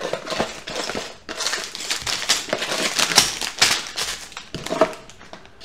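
Cardboard LEGO set box being opened and handled, with plastic bags of LEGO pieces crinkling and rattling as they come out onto the table: a quick, uneven run of crackles and clicks.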